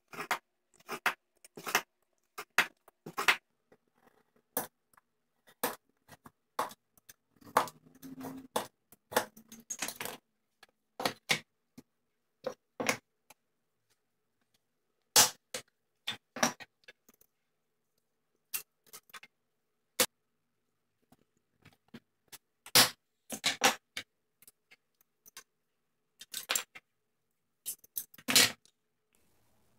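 A knife scoring a clear polycarbonate sheet by hand in short, sharp scraping strokes, some in quick runs with pauses between, and the scored sheet being bent to snap it.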